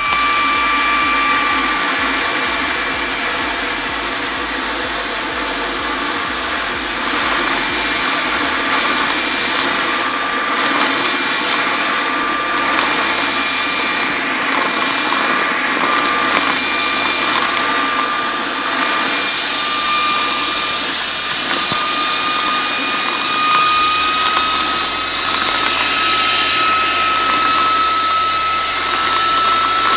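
Pando V9 Pro cordless stick vacuum running at maximum suction while sucking up loose cat litter: a steady motor whine over a rushing airflow noise. The whine's pitch creeps slightly higher through the second half.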